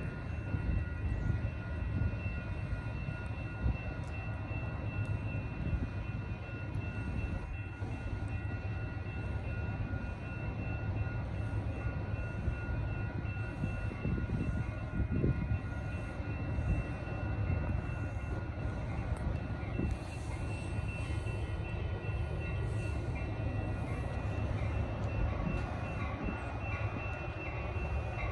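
Wind buffeting the microphone in strong gusts, over the faint sound of a commuter train approaching in the distance. Near the end a grade-crossing bell starts ringing.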